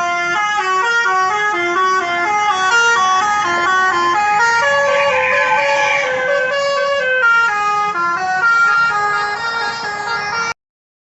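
Tour bus telolet horn: a multi-trumpet musical air horn playing a fast tune of stepping notes, several at once. There is a short hiss about five seconds in, and the horn cuts off abruptly near the end.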